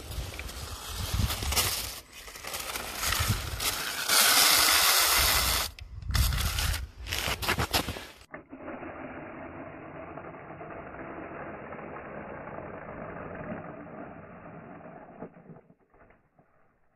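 Radio-controlled snowmobile driving over snow, its small motor and track running. The first eight seconds hold a loud, rough rushing noise; then the sound turns duller and steadier and fades out near the end.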